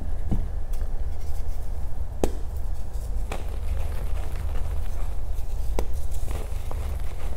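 Reformed gym chalk being crushed and crumbled, with a handful of sharp snaps scattered over a constant low rumble.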